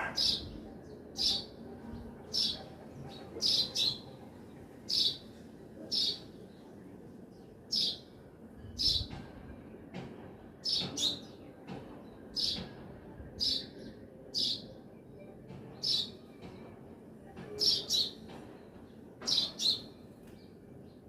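A bird repeating short, sharp chirps about once a second, some in quick pairs, over faint steady background noise.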